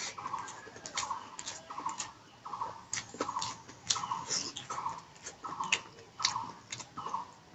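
Close-miked chewing of pork curry, with wet mouth clicks and smacks in a steady rhythm of about one and a half chews a second.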